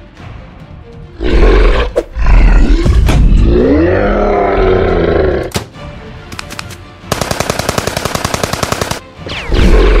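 A deep monster roar, its pitch rising then falling, from about a second in until about five seconds. Then a burst of rapid automatic gunfire lasts about two seconds.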